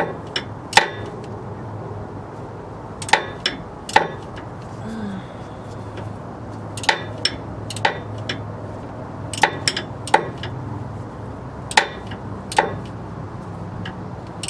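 Sharp metal clanks and taps of hand tools working on the school bus starter's mounting bolts, irregularly spaced, around fifteen in all, over a steady low hum.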